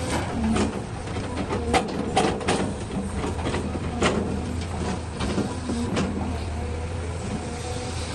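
Rocks and clods of dirt clattering into a steel dump truck bed as a Caterpillar 320 excavator empties its bucket, with sharp knocks scattered over the first six seconds. Under them runs the steady low drone of diesel engines.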